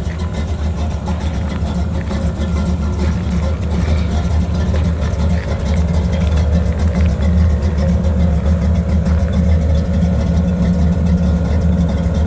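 1965 Chevy C10's V8 engine idling steadily.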